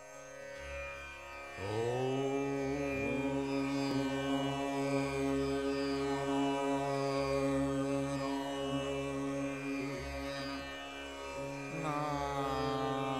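Dhrupad alap in raga Puriya Dhanashree: a steady tanpura drone, with a male voice gliding up into long held notes about a second and a half in, and sliding in again near the end.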